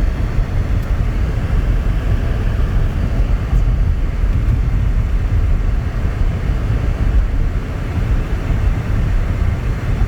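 A steady, loud low rumble with a fainter hiss above it, unbroken throughout.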